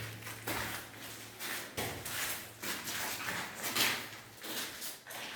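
Footsteps scuffing, a short scrape about every half second, with a low steady hum that stops about a second and a half in.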